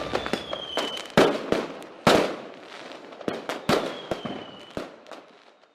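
Fireworks bursting: a string of sharp bangs with crackling tails, the loudest about a second and two seconds in. A faint high whistle slides slightly down twice, and the bangs thin out and fade away near the end.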